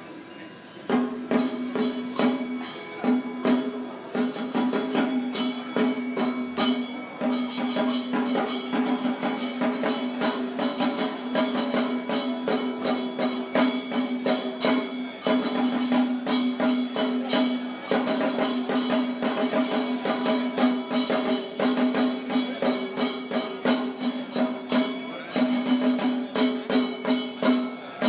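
Kerala temple percussion music for a velakali dance: hand cymbals and drums beating a fast, steady rhythm over a held droning note.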